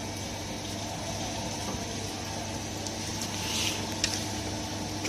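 Steady background noise: an even hiss over a constant low hum, with a short faint hiss about three and a half seconds in and a single click just after.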